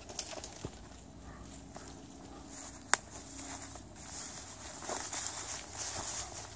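Footsteps through dry grass and brush, rustling, heavier in the second half. A single sharp crack sounds about three seconds in.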